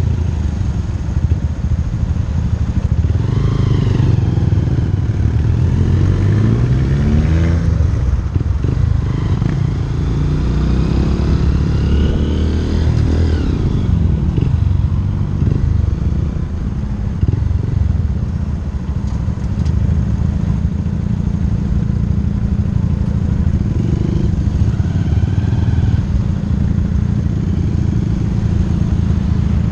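Engines in slow traffic: a motorcycle engine running close by, with a VW Golf GTI just ahead. Engine revs rise in pitch three times in the first half, about 3, 7 and 12 seconds in, then the running settles to a steady drone.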